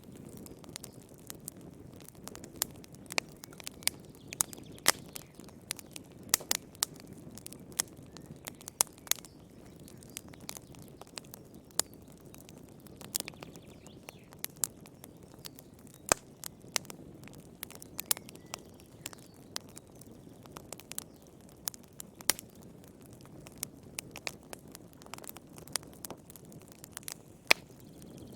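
Fire in a fireplace crackling: sharp, irregular pops and snaps, sometimes several close together, over a low steady rumble of the flames.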